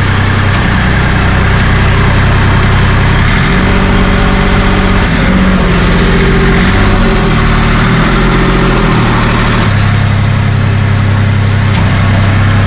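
Enclosed lifeboat's inboard diesel engine running, loud and close inside the hull. Its speed changes and wavers for several seconds in the middle, then drops back to a steady idle about ten seconds in.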